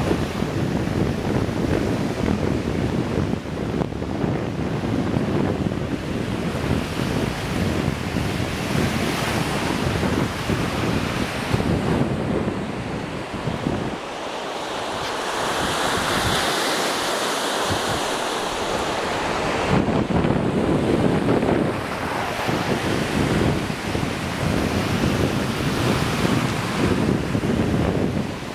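Small lake waves breaking and washing up a sand beach, with gusty wind rumbling on the microphone. The wind drops for a few seconds around the middle, leaving the hiss of the wash on its own.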